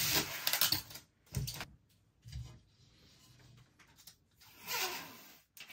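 Protective plastic film being peeled off a 3D printer's glass panel and crinkled in the hands, followed by a couple of soft knocks and a further rustle as the printer's enclosure is handled.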